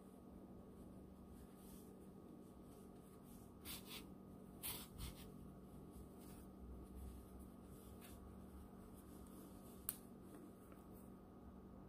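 Faint rustling of yarn being drawn through crocheted fabric with a yarn needle: a few soft scratchy swishes about four to five seconds in, then a single small tick about ten seconds in.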